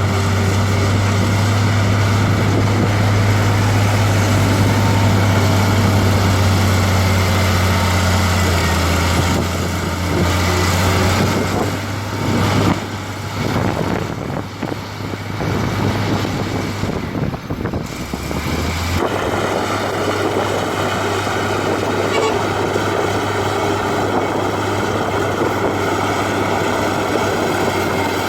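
Heavy diesel earthmoving machinery running on a construction site: a steady low engine drone that dips and wavers about halfway through, then settles into a different, lighter running note.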